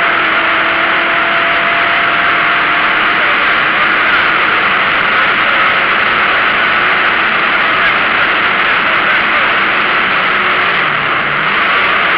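Opel Ascona A rally car driven hard on a stage, heard from inside the cabin: loud, steady engine, road and wind noise, with the engine note dipping briefly near the end.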